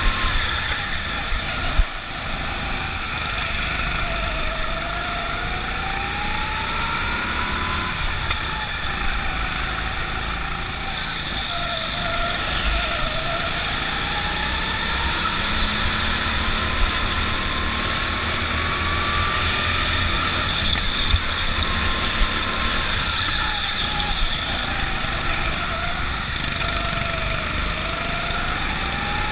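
Go-kart motor heard from on board while racing, its pitch rising and falling every few seconds as the throttle goes on and off through the corners, over a low rumble of the kart running on the track. A sharp knock about two seconds in.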